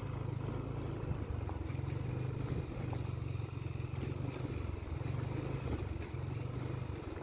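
Motorcycle engine running at low revs as the bike rolls slowly over a rough gravel road; the engine note shifts up and down a little, over a steady rumble of tyre and road noise.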